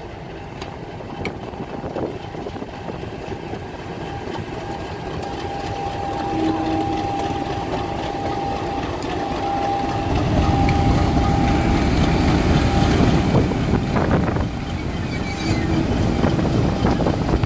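British Rail Class 50 diesel locomotive 50 015, its English Electric 16-cylinder engine running as it draws slowly up and passes close by. The engine grows steadily louder and is heaviest from about ten seconds in as the engine compartment comes level. A steady high whine sits over it until about thirteen seconds in.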